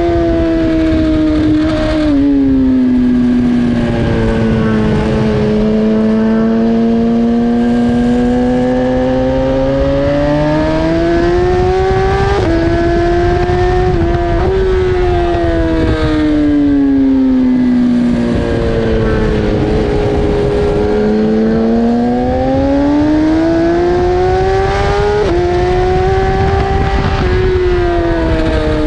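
BMW S1000RR's inline-four engine at racing revs, its pitch sweeping down under braking and climbing again under acceleration several times, with sudden small steps at gear changes. Steady wind rush underneath.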